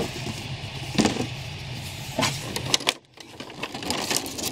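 Cardboard box insert and a clear plastic bag being handled, rustling and crinkling, with a few sharp knocks, over a steady low hum. The sound drops out briefly about three seconds in.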